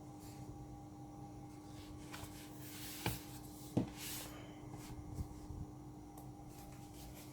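Light clicks and taps from handling a MacBook Pro and a small screwdriver on a work surface, with two sharper clicks about three and nearly four seconds in and a few softer ticks after, over a faint steady hum.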